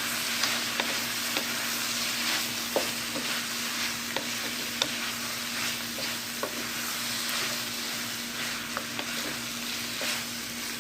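Chicken, sausage and vegetables sizzling in hot oil in a pot while being stirred, with a spoon clicking against the pot now and then. A steady low hum runs underneath.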